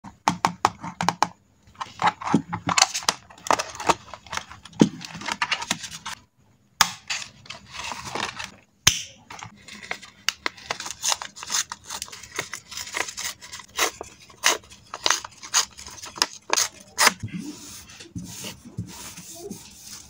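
Hands handling paper: a sheet of grid paper torn by hand in short crisp rips, with rustling and light taps of paper on the desk, and brief pauses about six and nine seconds in.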